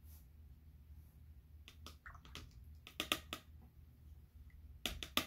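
Light clicks and taps from a paintbrush being handled, in small clusters: a few about two seconds in, a quick run about three seconds in and another near the end.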